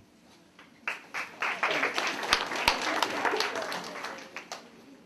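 Audience applauding, beginning about a second in and dying away near the end.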